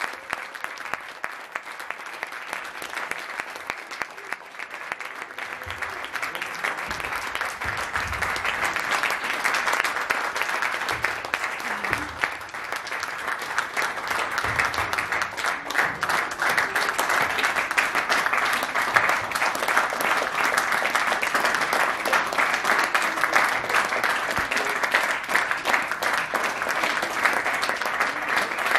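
Theatre audience applauding a curtain call, the clapping growing louder over the first several seconds and then holding steady.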